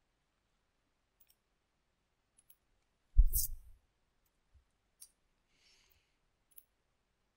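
Computer mouse clicks: a few faint, scattered clicks and one much louder click with a low thud about three seconds in, with near silence between them.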